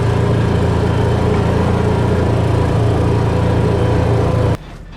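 A vehicle engine running steadily with a low, even drone, cutting off suddenly near the end.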